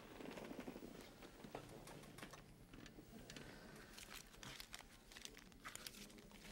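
Faint crinkling rustle of paper banknotes being handled at a desk, a string of small crisp crackles.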